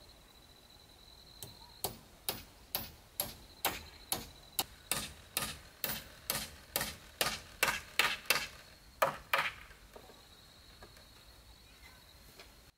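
Claw hammer driving a nail into a wooden frame: a steady run of about twenty sharp strikes, a little over two a second, that starts about a second and a half in and stops near the ten-second mark. A faint steady high insect drone runs underneath.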